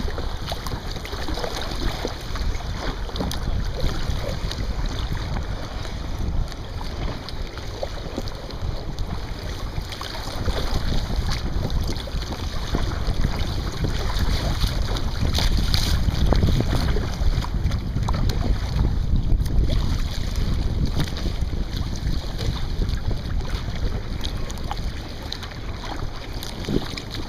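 Wind buffeting the microphone over water splashing and lapping around a kayak at sea, gusting a little louder about halfway through.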